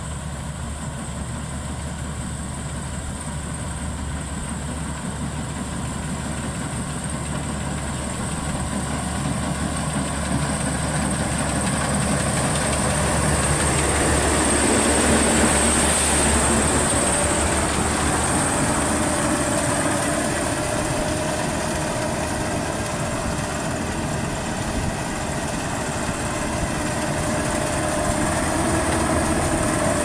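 Maxxi Bimo 102L rice combine harvester running, its engine and threshing machinery getting louder over the first half as it comes close. It then holds at a steady drone, with a steady whine joining in about halfway through.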